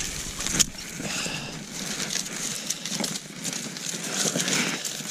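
Rustling and crunching of dry marsh grass, snow and jacket fabric close to the microphone as a steel foothold trap and its chain are handled, with a few sharp clicks.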